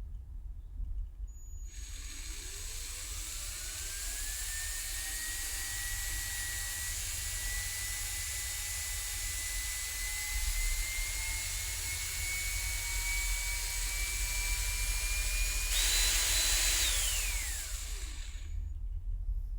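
Electric drill motor spinning up with a rising whine, then running steadily with its pitch creeping slowly higher. Near the end it jumps to a louder, higher whine for about a second, then winds down and stops. A low hum runs underneath.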